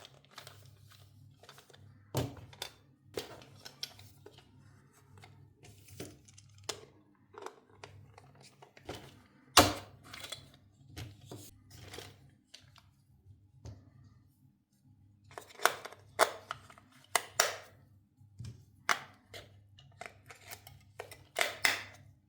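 Toy packaging being handled and opened: irregular knocks, clicks and rustles of cardboard and plastic, the loudest knock about ten seconds in and quick runs of sharp clicks later on, over a steady low hum.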